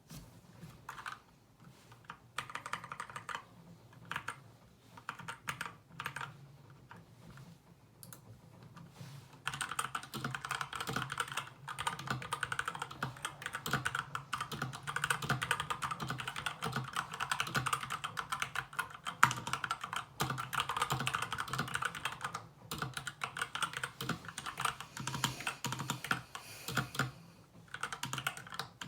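SK61 mechanical keyboard with lubed Gateron Brown tactile switches and pudding keycaps, being typed on. Scattered keystrokes at first, then fast, continuous typing from about a third of the way in, with a short pause near the end.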